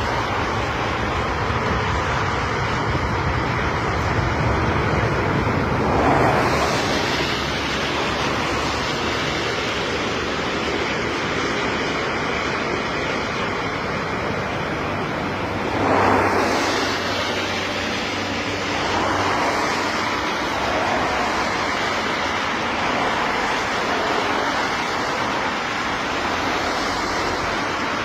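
A steady rushing of storm wind on the microphone, blended with the low rumble of a twin-engine airliner's jet engines as it begins its takeoff roll on a wet runway. Two louder gusting swells come about 6 and 16 seconds in.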